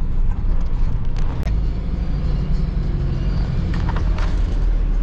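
Engine and road noise inside a van's cabin while driving: a steady low rumble with a faint held engine note, and a few short clicks.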